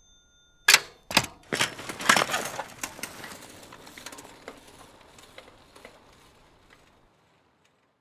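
A bicycle clattering to the ground: two sharp crashes, then a jumble of metallic knocks and rattles that die away over about six seconds.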